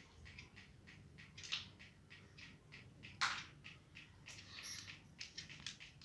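Light, irregular scratching and tapping of a pet parakeet's claws on a hard floor as it walks about, with one louder, harsh rasp about three seconds in.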